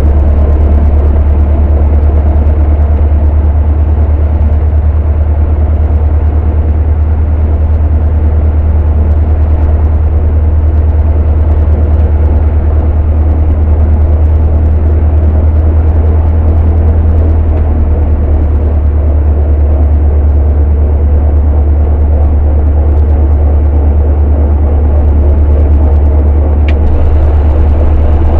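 Cessna 152's four-cylinder Lycoming engine and propeller running at a steady, unchanging speed, heard loud from inside the cabin as a deep, steady drone.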